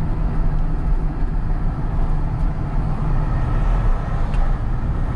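Engine and road noise heard from inside a delivery truck's cab while driving: a steady low rumble.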